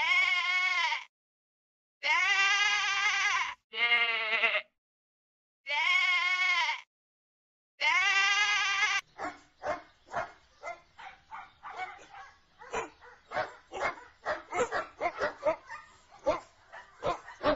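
A sheep bleating five times, each bleat about a second long with a wavering pitch, with dead silence between them. From about nine seconds in, several dogs barking and yipping in quick, overlapping yaps.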